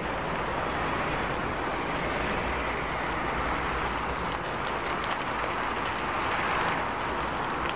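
Heavy rain falling on a city street, a steady hiss with a low rumble of traffic underneath.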